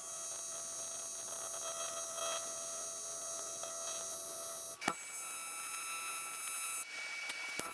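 AC TIG welding arc on aluminum, a steady high electrical buzz. It breaks off with a click about five seconds in, then comes back with a slightly changed tone near the end.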